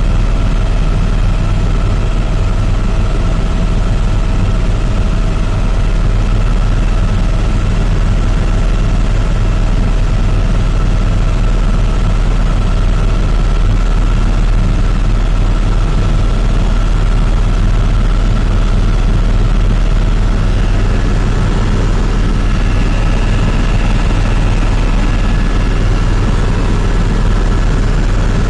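Helicopter in flight, heard from inside the cabin: a loud, steady low rotor and engine rumble with a constant whine above it.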